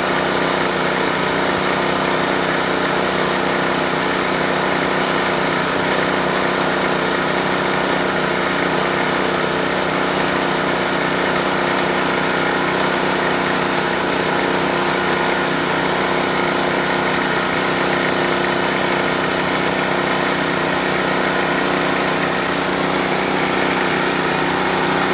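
Small engine of a bore-well drilling machine running steadily at a constant speed, with no change in pitch or level.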